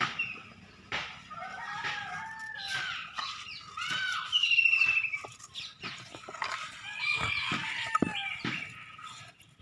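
Chickens and other birds calling, several overlapping calls with a rapid trill about halfway through, among scattered sharp knocks.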